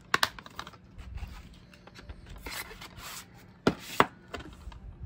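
Hard plastic DVD cases being handled: a sharp snap just after the start, a rubbing scrape of case against case in the middle, then two loud clacks as cases knock together.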